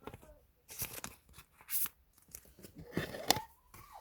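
Plastic photocard packaging being handled: several short bursts of crinkling and rustling, the busiest near the end.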